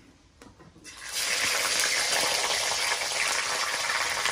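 Raw fish pieces going into hot oil in a wok over a wood fire: a steady frying sizzle starts suddenly about a second in.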